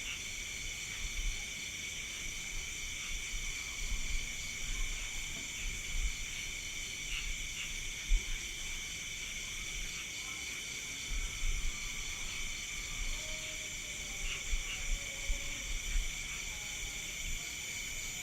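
Night insect chorus: crickets and other insects calling steadily in several high-pitched layers, one of them a fast pulsing trill. Irregular low thumps come and go underneath.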